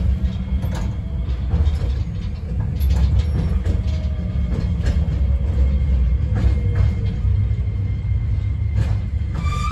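Iyo Railway Moha 5000 low-floor tram running on street track, heard from inside the car: a steady low rumble from the wheels with scattered clicks over rail joints, and a faint inverter whine from its Toshiba IGBT VVVF drive that falls in pitch midway as the tram slows toward a stop.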